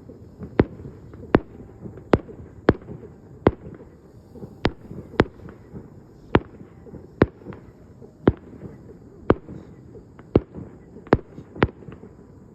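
Fireworks shells bursting in quick succession, about one or two sharp bangs a second, over a continuous low rumble.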